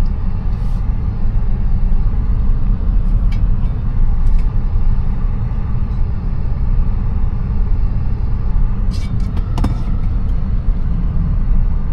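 Steady low rumble of a Tesla electric car driving over a snow-covered lot, road and tyre noise with no engine sound. A few short clicks come about nine to ten seconds in.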